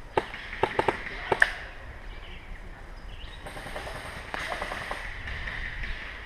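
Airsoft guns firing: several sharp single shots in the first second and a half, then a short rapid burst of fainter shots about four and a half seconds in.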